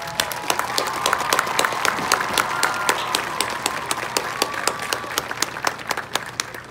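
Audience applauding and cheering after a marching band's piece ends, with many sharp claps and some voices held in cheers. It dies away near the end.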